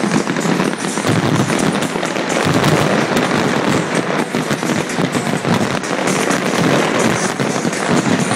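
Aerial fireworks bursting in a dense, continuous volley: many shells and crackling stars popping and cracking at once, with no break.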